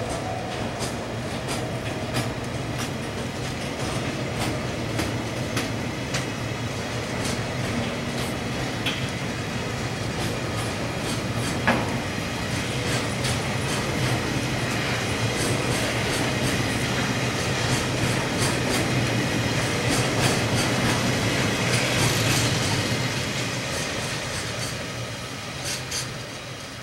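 Oil tank wagons of a freight train rolling past, their wheels clicking steadily over the rail joints. It grows louder through the middle, then fades near the end as the last wagon draws away.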